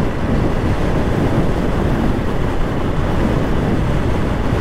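Steady wind blast over an action camera's microphone on a Honda Hornet 160R motorcycle riding at about 80 km/h, a dense rush of wind and road noise.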